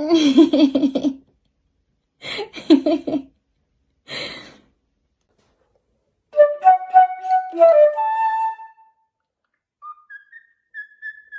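A parrot gives three short harsh calls, then whistles a string of clear notes at steady pitches that step up and down like a little tune, ending with thinner high whistles.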